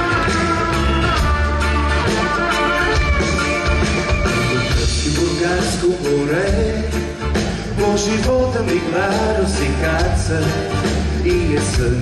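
Live band playing, with strings, keyboard and guitars over a pulsing bass line; a man's singing voice comes in about five seconds in.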